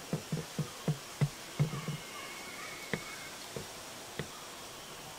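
An animal giving a run of short, low calls, about three to four a second, slowing and stopping about two seconds in. A few single clicks follow, with a faint high thin tone in the middle.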